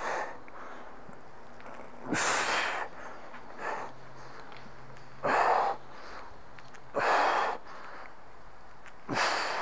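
A man breathing hard from exertion during kettlebell overhead squats: four loud, forceful breaths two to three seconds apart, with fainter breaths between.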